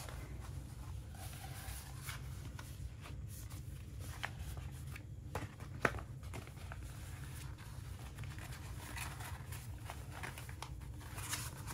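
Quiet room tone with a low steady hum, broken by scattered light clicks and soft rustles of things being handled; the sharpest click comes about six seconds in.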